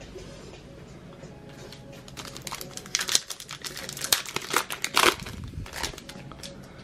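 Plastic wrapper of a Mosaic No Huddle trading-card pack being torn open and crinkled: a run of sharp crackles that starts about two seconds in and lasts some four seconds, over faint background music.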